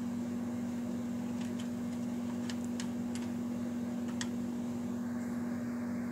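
Steady low electrical hum, like an appliance or fan running in a small room, with a few faint light ticks scattered through the middle.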